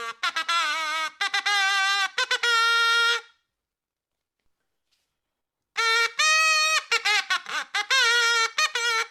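Comic sound effect of a brass-like horn playing short, wobbling, bending notes in two phrases, with about two seconds of silence between them.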